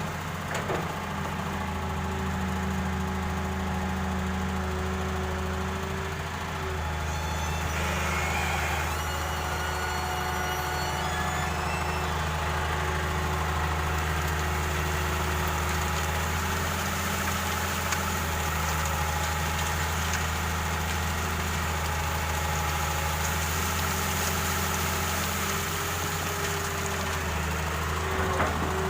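Excavator's diesel engine running steadily, with small rises and dips in load as it works.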